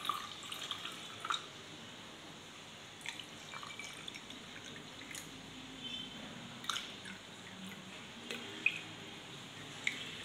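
Cold water being poured into glass tumblers over ground mint and lemon juice: a steady trickling splash of liquid, with a few clicks scattered through.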